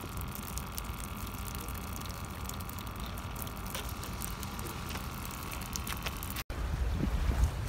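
Live sprats flapping on concrete, a scatter of small wet slaps and ticks over a steady hum. About six and a half seconds in it cuts to wind buffeting the microphone.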